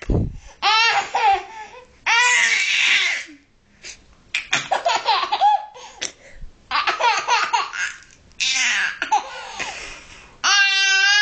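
A baby laughing in repeated bursts, about six, each around a second long, with quicker choppy giggles in the middle.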